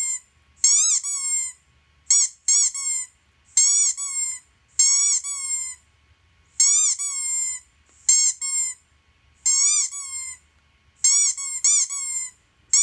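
Squeaky toy squeaking over and over, played back from a laptop's speakers: groups of one to three short, high squeaks about once a second, each rising and then falling in pitch.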